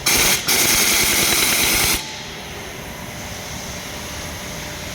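A loud, steady hiss with a brief break near the start, cutting off suddenly about two seconds in, leaving a quieter steady background noise.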